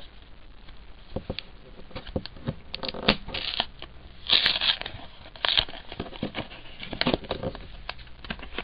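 A trading-card pack wrapper being torn open and peeled back by hand, crinkling and crackling in short, irregular bursts, with a few louder rips in the middle.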